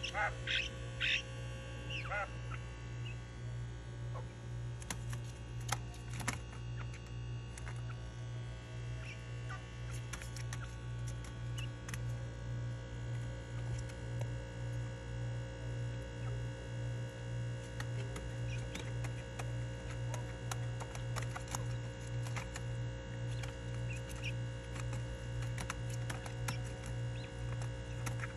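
Caged quail giving a few short chirps in the first couple of seconds, then scattered light clicks and taps as they move and drink from a glass water jar, over a steady low hum.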